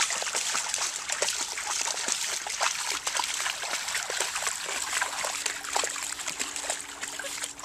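Dogs wading through shallow lake water: a continuous patter of small splashes and trickling water from their legs and paws.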